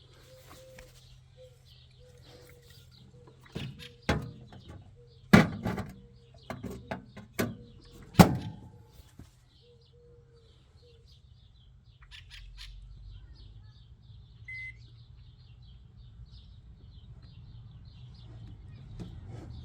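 A series of sharp clunks and knocks, a microwave oven's door and the energy drink cans being handled, then a single short beep. Small birds chirp faintly over a low steady hum.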